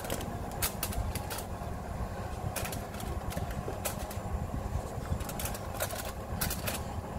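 Metal kitchen tongs clicking and scraping on a foil-lined oven tray as chicken wings are turned, a dozen or so sharp clicks, some in quick pairs. Underneath runs a steady low hum.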